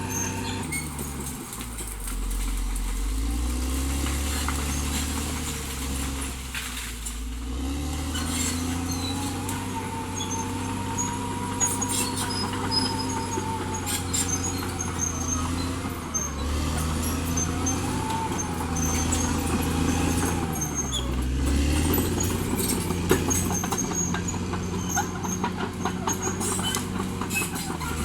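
Caterpillar D6R XL bulldozer's diesel engine working, its pitch rising and falling several times, with a wavering whine in the middle and many short clanks and knocks.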